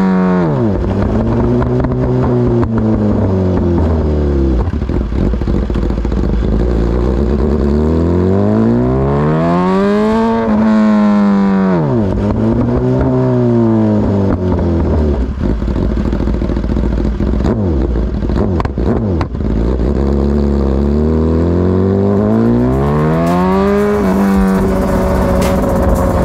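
BMW S1000RR's inline-four engine revving up and down as the bike speeds up and slows in traffic. Its pitch climbs and drops several times, with a few steady stretches between.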